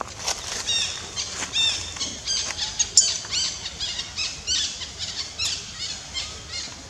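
Baby long-tailed macaque crying in a fast series of short, high-pitched, arching squeals, loudest about three seconds in.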